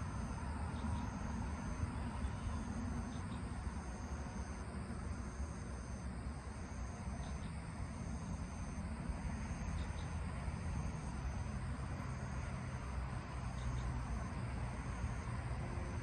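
A high-pitched insect call repeating in pulses about a second long, roughly every second and a half, over a steady low rumble.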